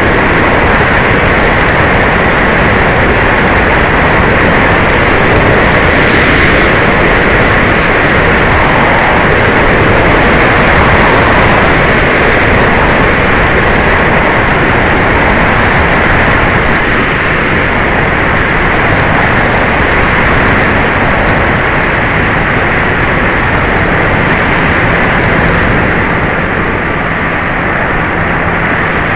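E-Flite Apprentice electric RC trainer plane in flight: its motor and propeller running steadily under a loud, even rush of air noise.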